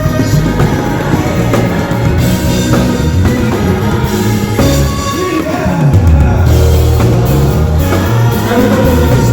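Loud live band music with singing over a heavy bass line.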